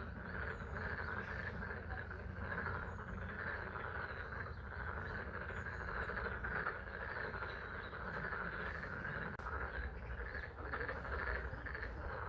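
Chorus of frogs calling continuously, many voices overlapping, over the steady patter of spring rain.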